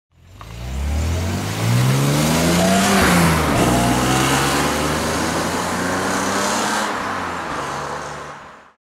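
BMW E30 320i Touring's M20 2.0-litre straight-six accelerating past: the engine note climbs, drops in pitch as the car passes about three seconds in, then runs steadier and fades as the car pulls away.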